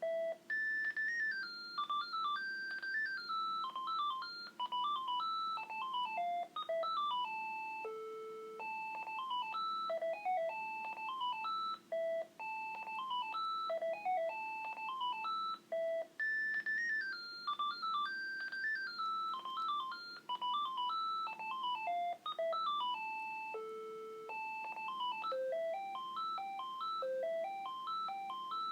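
Panasonic KX-TGA931T DECT 6.0 cordless phone handset playing a melodic ringtone. It is a quick run of short electronic notes stepping up and down, with one longer low note, and the tune repeats about every fifteen and a half seconds.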